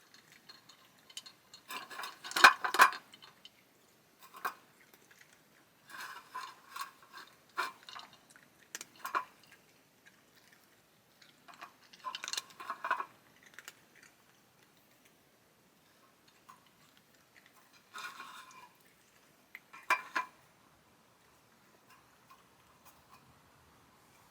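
Several separate bursts of light, sharp clicks and clinks with quiet gaps between them. The loudest burst comes about two to three seconds in, and single sharp clinks follow later.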